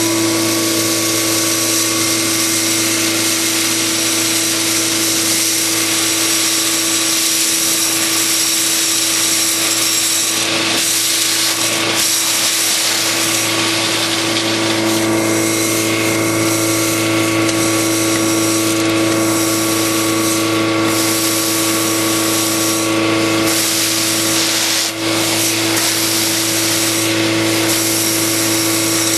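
DuroVac PL400 40 hp industrial vacuum running at full power: a loud, steady hum over a rush of air. Brief rattles and clicks are scattered through it as gravel and sand are sucked up.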